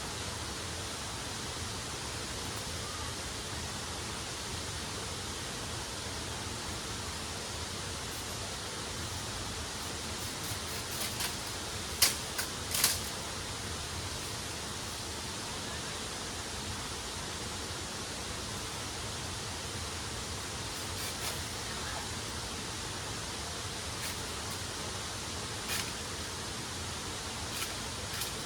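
Waterfall rushing steadily. A few sharp clicks or knocks sound over it, the loudest two close together about twelve seconds in.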